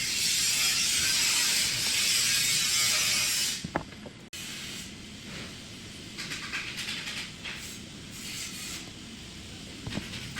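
A pressurised jet hissing loudly and steadily for about three and a half seconds, then stopping with a click. Several shorter, fainter bursts of hiss follow.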